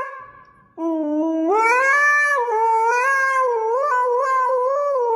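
A cat yowling: after a brief pause, one long drawn-out call that wavers and slides up and down in pitch.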